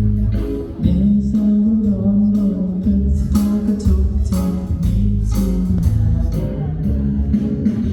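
A singer with a live band performing a pop song, with a steady drum beat under the vocal line.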